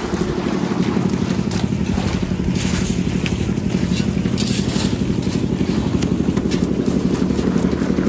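A small engine runs steadily throughout, with short scraping and slopping sounds from wet concrete being tipped and worked.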